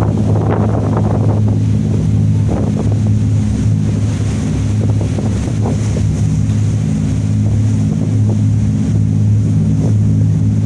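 A boat's engine running steadily with a deep, even drone, mixed with water splashing and wind buffeting the microphone.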